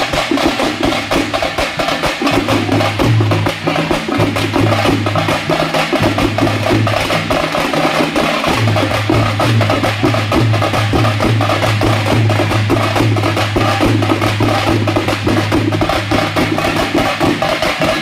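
Loud dance music driven by fast, dense percussion, with long held bass notes underneath.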